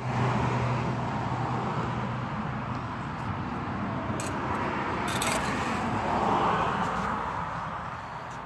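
A steady rushing outdoor background noise that swells about six seconds in and eases off near the end.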